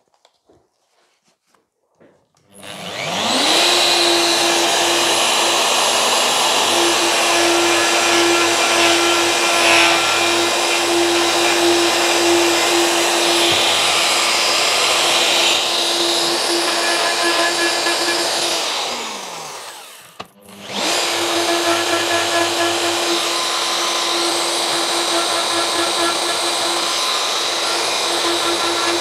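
Plunge router running up to speed and cutting steadily as it is worked round a dog hole through a template, taking a further cleaning pass to true up the hole. About 19 seconds in it winds down and stops. A second later it starts again and keeps running.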